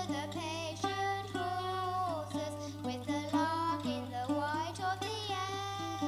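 A girl singing a slow folk melody, accompanied by a plucked acoustic guitar, over a steady low hum.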